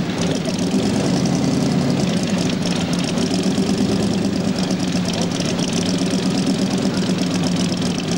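Twin-supercharged hot rod engine idling with a fast, even pulse.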